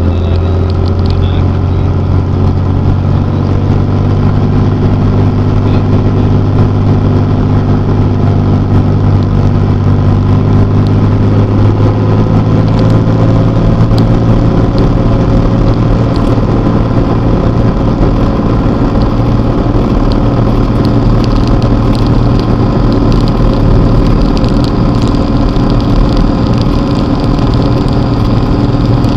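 A light aircraft's engine runs steadily at low power on the runway before takeoff, with slight shifts in pitch. The plane starts rolling forward near the end.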